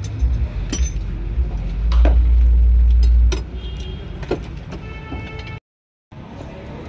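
Scattered clicks and knocks of hands working on the exposed steering column and dashboard wiring, over a heavy low rumble that stops about three and a half seconds in. The sound cuts out completely for half a second near the end.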